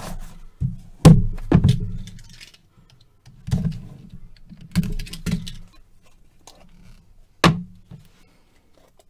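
A sealed trading-card box being opened and its cards handled: a series of thunks, clicks and short scrapes, the sharpest knock about a second in and another near the end.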